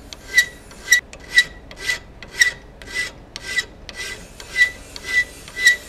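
A steel hand file rasping across the bevel of a 4142 steel hot-cut chisel held in a vise, in a steady run of about eleven strokes, roughly two a second. Each stroke carries a brief ringing note. The file is shaping the chisel's sharp side.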